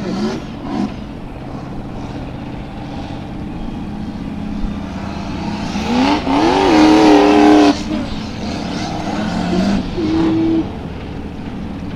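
A Formula Offroad hillclimb buggy's engine running under load up a steep dirt slope. About six seconds in, the revs climb sharply and are held high, at their loudest, for under two seconds before cutting off suddenly. A shorter high-rev burst follows around ten seconds in.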